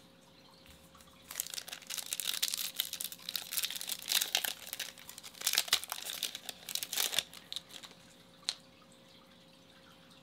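Foil wrapper of a Topps Chrome baseball card pack crinkling and tearing as it is ripped open and peeled off the cards, from about a second in to about seven seconds. A single sharp click follows near the end.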